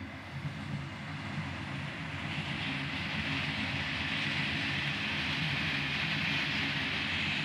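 Rumble and hiss of a passing vehicle, growing steadily louder over the first few seconds and then holding.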